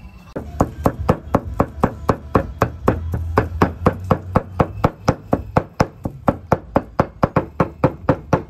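Large kitchen knife mincing raw rabbit meat on a wooden chopping block: quick, even chopping strokes, about four or five a second, starting a moment in.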